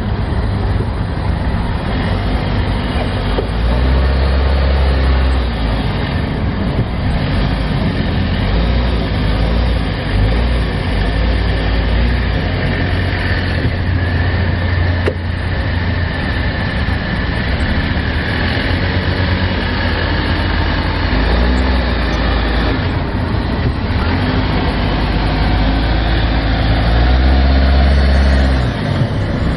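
Jeep Wrangler JL Rubicon engine running at low revs as the Jeep crawls over a dirt mound, with the engine note swelling briefly a few times, most strongly near the end.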